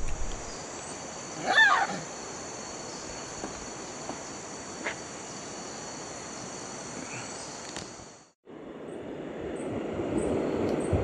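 Outdoor forest background with a steady high-pitched drone, typical of insects, and one short wavering animal call about a second and a half in. About three-quarters of the way through the sound cuts off briefly and returns as a louder background with a high chirp repeating about twice a second.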